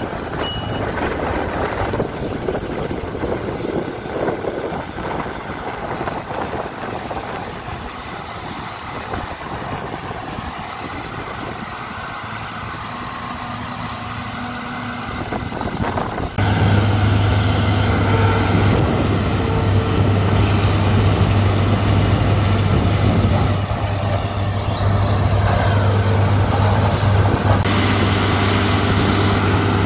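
Farm machinery engines running: a rough, noisy rumble for about half the time, then a sudden change to a louder, steady engine drone that holds.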